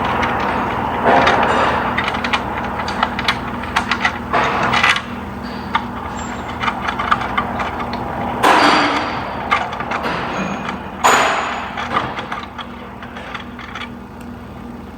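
Hand tools and metal parts clinking, clattering and scraping as a mechanic works, with several louder scraping bursts and a steady low hum underneath.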